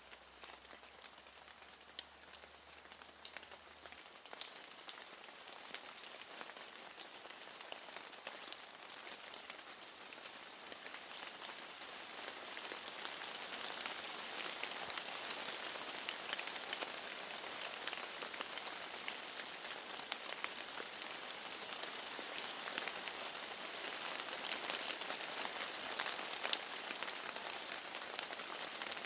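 Steady rain falling on window glass, with many distinct drop ticks over the hiss, growing louder about twelve seconds in.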